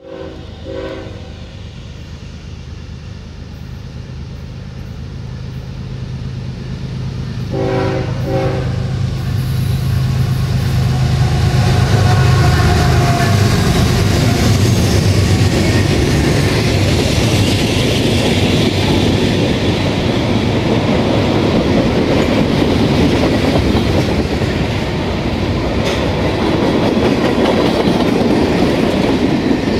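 Norfolk Southern diesel freight locomotives approach with their engines' deep drone growing louder, sounding the horn in a short blast at the start and a longer blast about eight seconds in. The locomotives pass about twelve seconds in, followed by tank cars rolling by with a steady rumble and wheel clickety-clack.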